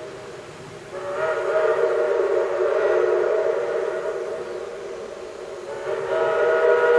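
Steam whistle of Shay No. 5, a 1905 geared steam locomotive, sounding several notes at once as a chord. A fading blast at the start gives way about a second in to a long blast, and another begins about six seconds in.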